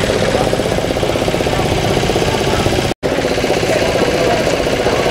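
A steady engine running, with indistinct voices mixed in. The sound cuts out completely for an instant about three seconds in.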